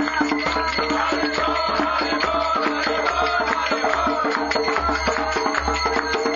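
Live kirtan: a hand drum beats a fast, steady rhythm under chanted singing led into a microphone.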